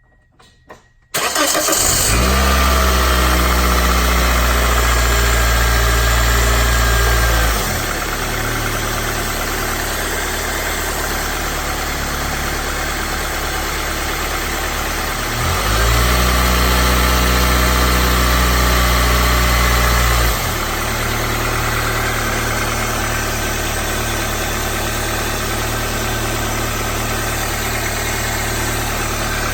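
2004 Toyota Corolla's four-cylinder engine starting about a second in and then idling steadily. It runs louder and deeper for two spells of several seconds, separated and followed by quieter idling.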